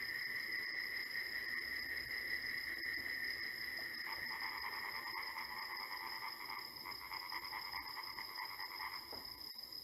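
Steady chirring of insects at several high pitches, joined about four seconds in by a lower, fast-pulsing trill that stops about nine seconds in.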